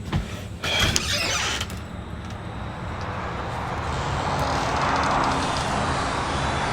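A front door being opened, with clicks and a short creak, then a steady rushing noise that slowly swells louder.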